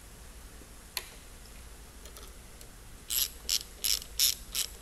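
Hand socket ratchet run back and forth on the handlebar clamp bolts, clicking in short strokes about three a second from about three seconds in, with a single click about a second in.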